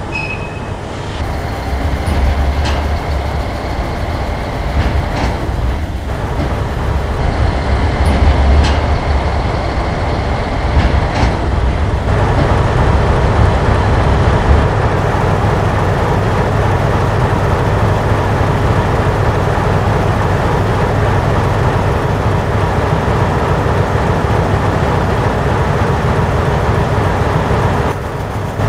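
Model diesel locomotive running along a model railway layout: a steady low rumble, with scattered clicks in the first half, then an even hum.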